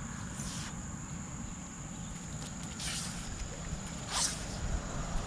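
Outdoor ambience with a low wind-like rumble and a faint steady high whine, broken by three short scraping rustles, the last about four seconds in and loudest.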